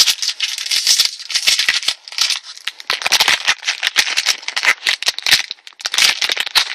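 Foil wrapper of a Pokémon card booster pack crinkling and tearing as it is opened, in a run of crackly rustling bursts with short breaks.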